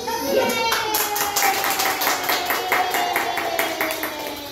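A group clapping in a quick, steady rhythm of about three or four claps a second, with one long drawn-out cheering voice sliding slowly down in pitch over it.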